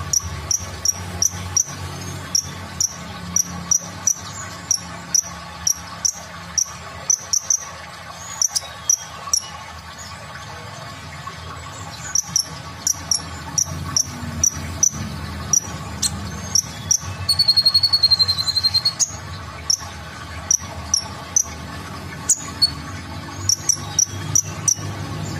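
Male kolibri ninja (Van Hasselt's sunbird) calling: a steady run of sharp, high chips about twice a second, broken about two-thirds of the way through by a louder, rapid buzzy trill lasting a second or two.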